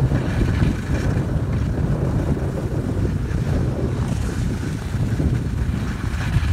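Wind rushing over the microphone of a phone carried by a skier moving downhill at speed, a steady low rumble.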